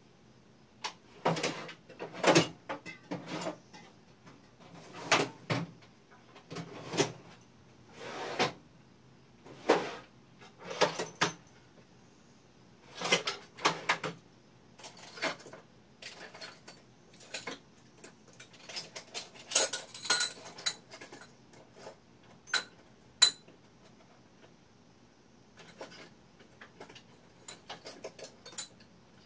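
Small metal parts and tools clinking and rattling as they are handled, in irregular short clusters with a brief run of lighter jingling about two-thirds of the way through.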